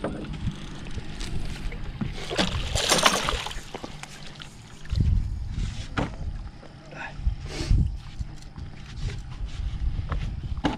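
Small fishing boat on the river: a steady low rumble of the boat and water, with irregular knocks and a brief noisy rush about three seconds in.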